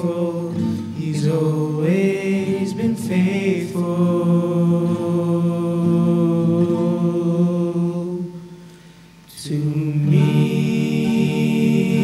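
Gospel song performed live: voices singing with instrumental accompaniment, moving into a long held final note that fades away about eight seconds in. A new sustained chord comes in about a second and a half later.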